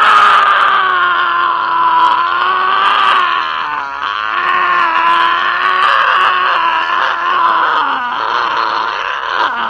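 An actor screaming as a possessed, monster-faced character: one long, wavering scream that dips in pitch briefly about four and eight seconds in.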